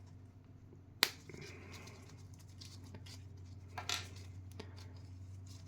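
Plastic miniature parts being snapped off the sprue by hand: one sharp click about a second in, then a few softer clicks and light handling of the plastic pieces.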